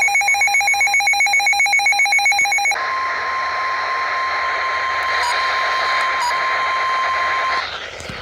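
An electronic alarm warbling rapidly for nearly three seconds, then a single steady tone for about five seconds that cuts off shortly before the end. The steady tone is the NOAA Weather Radio 1050 Hz warning alarm tone that comes before an Emergency Alert System severe thunderstorm warning.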